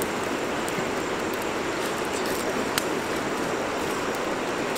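Open wood fire burning under fish grilling on a bamboo rack: a steady hiss with a couple of sharp crackles, one clear pop near the middle.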